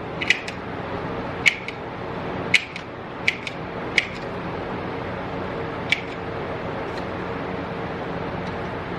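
Pinball machine metal parts being handled while the machine is taken apart: about six sharp metallic clicks and clinks in the first six seconds, over a steady low hum.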